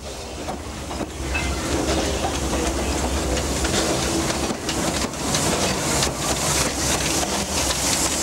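Narrow-gauge steam locomotive working a train: a low rumble builds about a second in, then hiss and a run of sharp exhaust beats grow louder in the second half.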